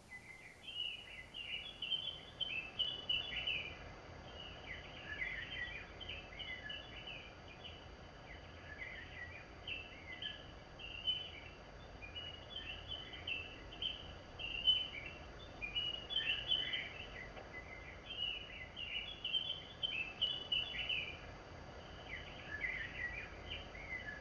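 Small birds chirping and twittering, several short high notes at a time in a continuous chorus, over a faint steady high whine.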